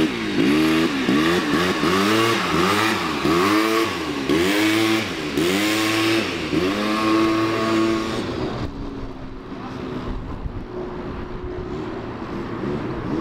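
Sport quad bike engine revving up and down in quick swells, about every two-thirds of a second, while the quad is held up on its back wheels in a wheelie; near eight seconds the throttle is held open briefly. About eight and a half seconds in, the sound drops to a quieter, steady engine hum.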